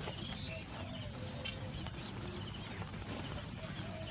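Faint bird calls and chirps scattered through, over a steady low background rumble.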